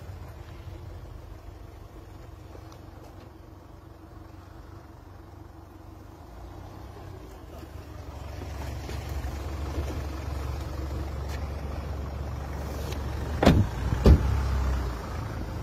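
Low rumble that grows louder through the second half, then two sharp knocks near the end, about half a second apart, as a car door is worked while getting out of the car.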